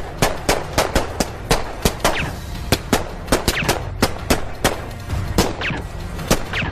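Gunfight sound effects: a run of single gunshots at irregular spacing, about three a second, several followed by a short falling whistle.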